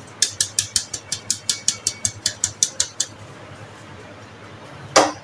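A sieve of flour and cocoa powder being tapped over a glass mixing bowl to shake the powder through: a quick, even run of sharp taps, about six a second, for roughly three seconds. A single sharper knock comes near the end.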